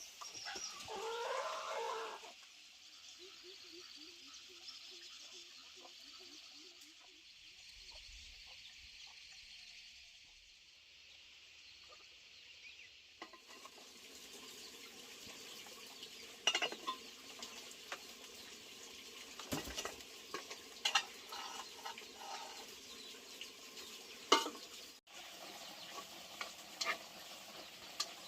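Food sizzling in a pan, a steady hiss with scattered clicks and scrapes of a utensil stirring, after a short pitched call at the start.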